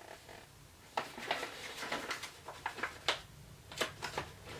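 A plastic beef jerky bag being torn open and handled, giving a faint, irregular series of short crinkling crackles.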